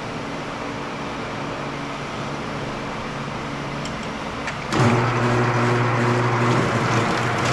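Electric wire stripping machine running with a steady hum. A little under five seconds in it gets louder, with a strong low hum, as thick 500 MCM copper cable feeds through its rollers and blade.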